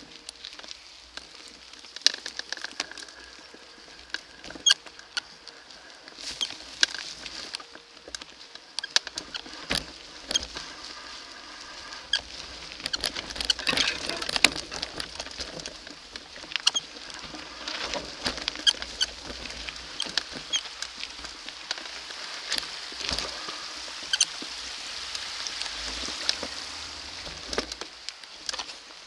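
Mountain bike rolling fast down a leaf-covered dirt forest trail: the hiss of the tyres over leaves and dirt, with frequent sharp clacks and rattles as the bike hits bumps and roots.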